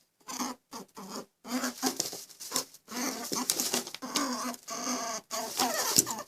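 A horse making a run of short, broken calls, stopping and starting every fraction of a second.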